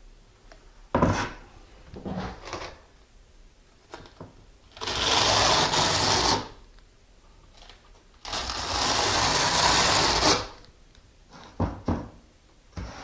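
Notched trowel spreading thinset across the back of a ceramic wall tile: two long scraping strokes, about five and eight seconds in, with a few short knocks and scrapes of the trowel and tile around them.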